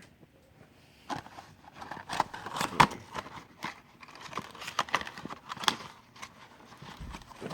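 Handling noise: irregular clicks, snips and crinkling rustles as small objects are handled close by, the loudest click about three seconds in.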